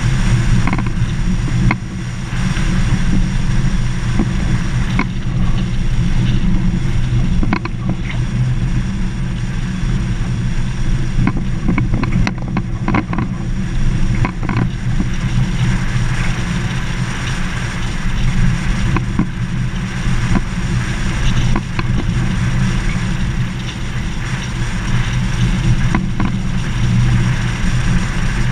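Vehicle driving on a gravel dirt road: steady low engine and tyre noise, with scattered short clicks and knocks from the rough surface.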